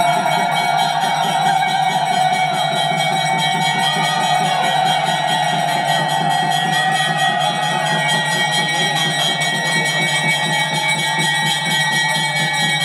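Temple music during worship: a sustained, slowly wavering melodic line over steady high ringing, like bells rung continuously.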